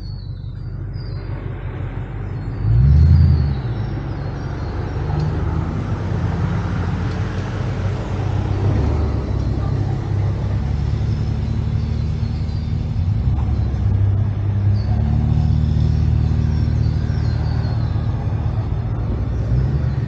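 Four-wheel-drive vehicle driving on the island's sand tracks: steady engine and road rumble, with a brief louder surge about three seconds in.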